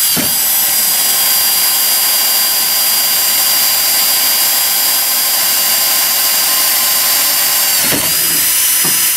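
Milwaukee 12-volt compact cordless drill running at speed, drilling the tap-size hole through aluminium boat sheet. It gives a steady motor-and-gearbox whine whose pitch dips briefly just after it starts and again about eight seconds in.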